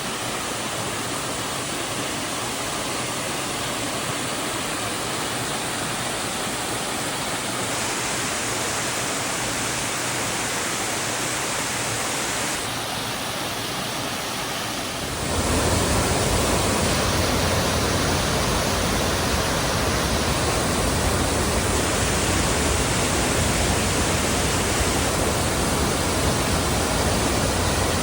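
Waterfall rushing in a steady, even roar of falling water. About halfway through it jumps louder and deeper as a bigger body of falling water takes over.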